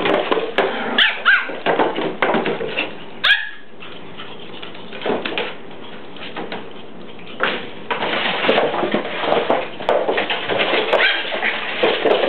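Pomeranians barking and yipping in play: a few short, sharp yaps in the first seconds, a quieter spell in the middle, then louder, busier barking and scuffling noise in the second half.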